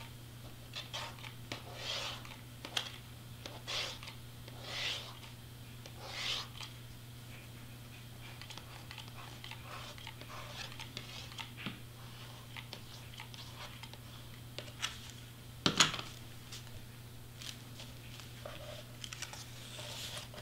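Cardstock and foam board being handled while a hot glue gun is worked along the edge: scattered soft rustles and small clicks, with one sharper knock about three quarters of the way through, over a low steady hum.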